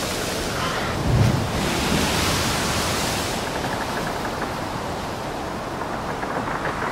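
Sound-effect recording of a steady rushing noise, with a short low thump about a second in.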